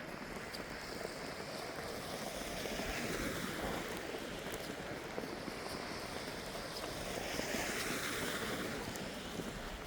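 Snowstorm street ambience: a steady rush of noise that swells twice, with light crunching footsteps in snow.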